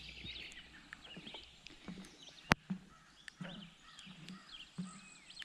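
Footsteps thudding at a steady walking pace on a wooden boardwalk, with small birds chirping throughout. One sharp click sounds about two and a half seconds in.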